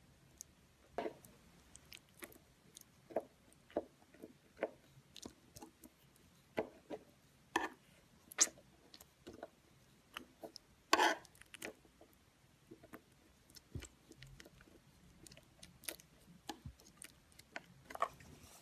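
Knife blade pressing into and squashing liquid laundry detergent pods, giving irregular sticky crackles and pops a few times a second, the loudest about 11 seconds in.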